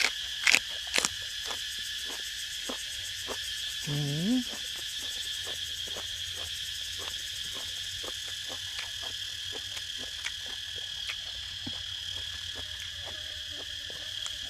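Steady, high-pitched trilling of a cricket chorus, with the clicks and crunches of someone chewing close to the microphone: a few loud crunches in the first second, then softer, regular chewing clicks. A short low hum rises briefly about four seconds in.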